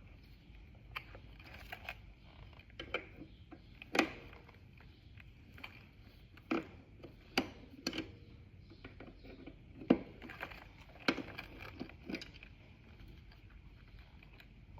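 Irregular clinks and knocks of hand tools and metal parts being handled during work on a three-wheeler's front wheel, about a dozen scattered sharp hits with two louder knocks near 4 s and 10 s.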